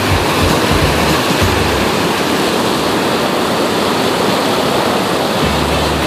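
White water of a waterfall cascade rushing steadily and loudly over boulders, pouring around a person sitting in the flow.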